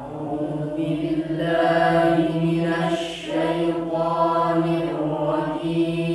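A child qari reciting the Qur'an in the melodic tilawah style, holding long ornamented phrases. The voice starts suddenly, with short breaks about three seconds in and again near the end.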